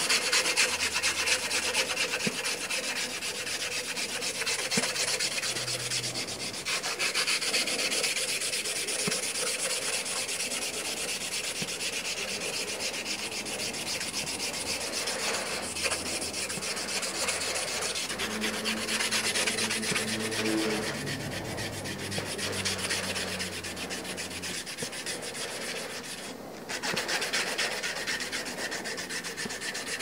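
A strip of sandpaper pulled rapidly back and forth, shoeshine style, around a knife handle of black-and-white G10 scales. It makes a steady scratchy sanding that breaks off briefly near the end.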